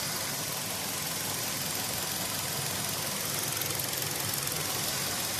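Diesel engine idling with its accessory drive belt running, giving a steady rustling, swishing sound because the belt has been treated with a belt dressing fluid; the belt is not squeaking.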